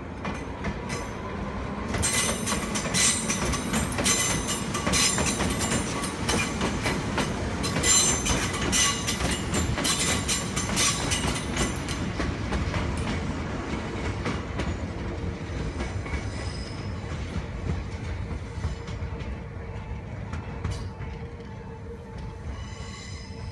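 Nagano Electric Railway local electric train moving through the station: wheels clatter over rail joints and squeal, loudest for the first several seconds, then fading away.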